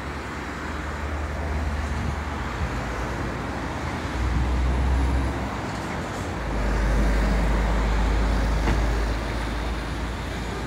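Motor vehicle noise: a steady road-traffic hiss with a low rumble that swells twice, briefly about four seconds in and for a longer stretch in the second half.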